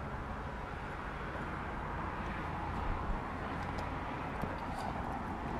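Steady outdoor background noise of distant traffic, with a few faint clicks.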